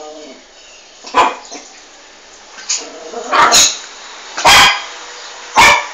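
Small dog barking: about five short, sharp barks at uneven intervals, two of them in quick succession.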